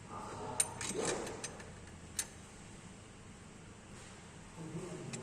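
A few light metallic clicks and taps of hand tools at the engine's valve adjuster in the first two seconds or so, during a valve clearance check with a feeler gauge, then only quiet room sound.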